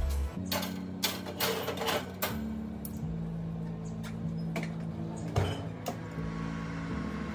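Metal kitchen tongs clicking against a baking dish and foil-wrapped shallots and garlic on an oven rack, a series of sharp clicks and knocks. Then, a little over five seconds in, a louder knock as the oven door is pushed shut.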